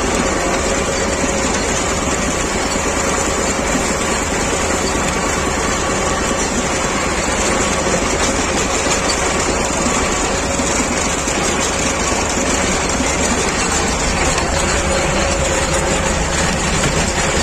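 T-25 Vladimirets tractor's two-cylinder air-cooled diesel running steadily, heard close up from the tractor.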